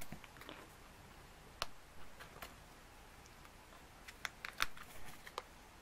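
Hands handling a small paper photobook keychain: faint light clicks and paper handling noises, scattered irregularly, most of them in the second half.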